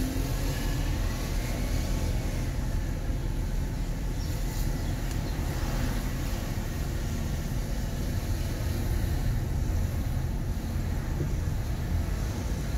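Steady low rumble of a Mercedes-Benz car driving slowly, with engine and tyre noise heard from inside the cabin.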